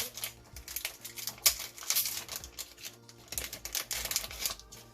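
Foil Pokémon booster pack and trading cards handled and crinkled, a quick irregular run of rustles and crackles as the next pack is opened.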